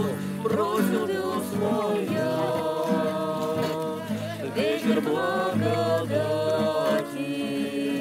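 A small group of men and women singing a song together, accompanied by an acoustic guitar.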